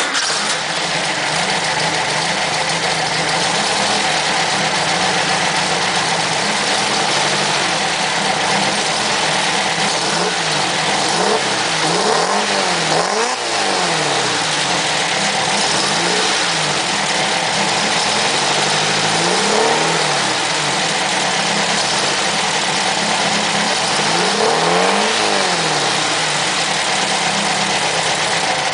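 Air-cooled VW 1500 flat-four engine idling with a light rumble. It is revved up and let back down several times, mostly from about ten seconds in.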